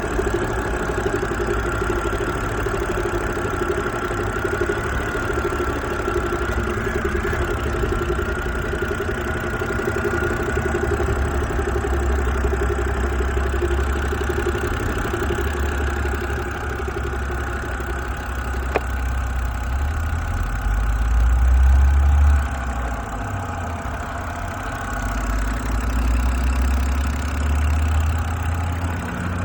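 BMW N52 straight-six engine running at idle with a knock, the fault the recording is meant to show. A single sharp click about two-thirds of the way through cuts off a steady hum, and the engine briefly gets louder a few seconds later.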